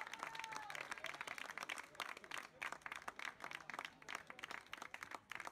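Small crowd of spectators clapping steadily, with a few voices calling out near the start.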